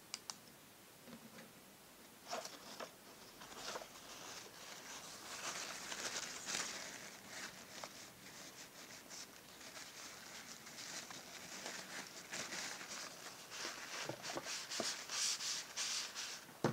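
Paper towel crumpled and rustled in the hand while wiping ink off a fountain pen's nib section: a dense crackling rustle with sharp crinkles that starts about two seconds in, grows busier near the end, and stops suddenly.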